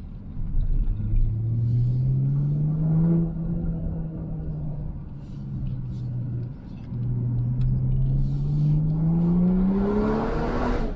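BMW X6 with an aftermarket TNEER cat-back exhaust accelerating, heard from inside the cabin. The engine note climbs for about two seconds, holds, then breaks off briefly at a gear change about six and a half seconds in, and climbs steadily again until near the end.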